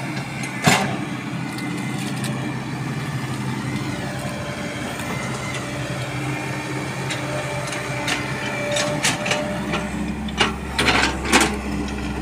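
Caterpillar E120B hydraulic excavator's diesel engine running steadily under digging load, with a faint whine over the engine hum. A sharp knock about a second in, and a run of clanks and knocks in the last few seconds as the bucket works through rocky soil.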